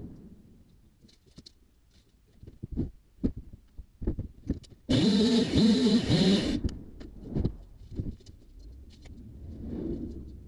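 A gas chainsaw runs in one short, loud burst of under two seconds that starts and stops abruptly, amid scattered knocks and footsteps on the loft's wooden floor boards.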